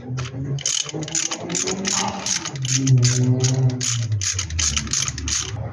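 Ratchet wrench clicking in short irregular runs, a few clicks a second, as a spark plug is worked out of the Hillman Superminx's engine.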